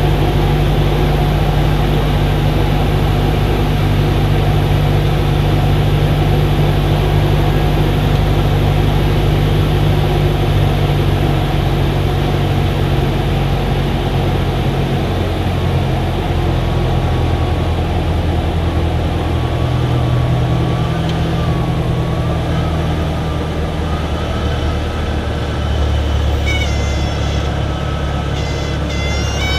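Cessna 172's piston engine and propeller droning loudly through the cabin, the engine note shifting about halfway through. Near the end a high, reedy warning tone starts suddenly: the stall warning horn.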